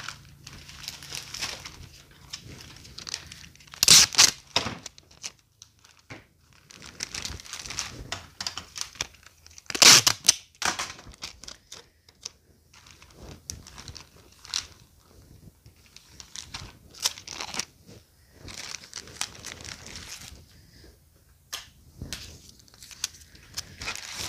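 Plastic poly bags crinkling and rustling as shampoo bottles are handled and bagged, with two short, loud tearing rasps about four and ten seconds in.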